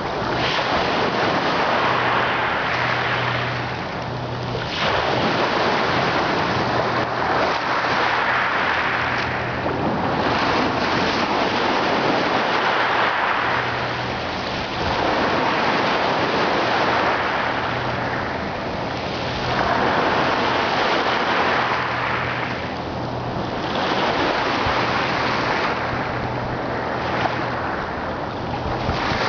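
Ocean surf: waves breaking and washing in, a steady rush that swells and eases every four to five seconds.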